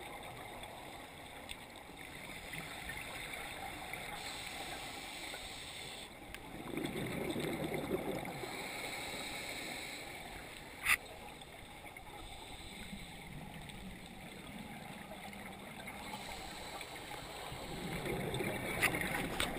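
Muffled underwater sound through a GoPro housing, with the gurgling rumble of scuba exhaust bubbles from a diver's regulator swelling about six seconds in, faintly again later, and once more near the end. A single sharp click about eleven seconds in.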